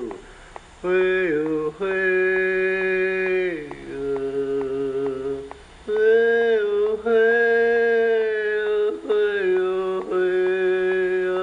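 A voice chanting in long held notes of a few seconds each, stepping to a new pitch between them with short breaths. There are no clear words.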